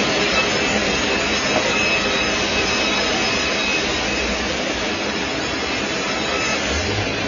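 Log band sawmill running, a loud steady whirring rush with no letup; a low hum comes in near the end.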